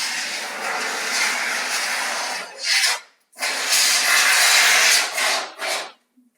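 Rough abrasive rubbing on a plaster wall: two long passes of about two and a half seconds each, each followed by short strokes, then it stops.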